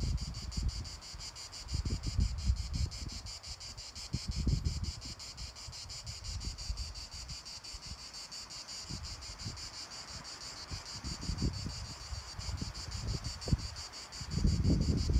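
Insects chirping steadily in a fast, even pulse, with gusts of wind buffeting the microphone.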